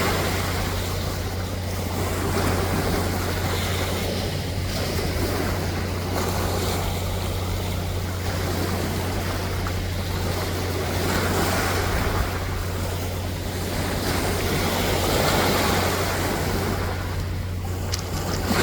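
Sea waves breaking and washing ashore, the surf swelling and easing every few seconds, over a steady low rumble.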